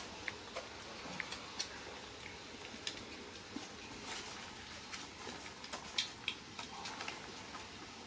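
Puppies moving about on a concrete floor and cloth: paws and claws pattering and scuffing, heard as a scatter of faint irregular clicks and ticks.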